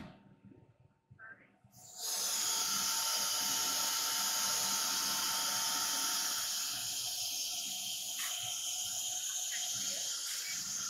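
Compressed air hissing steadily from a CNC router's automatic tool-change spindle during a tool change. It starts suddenly about two seconds in.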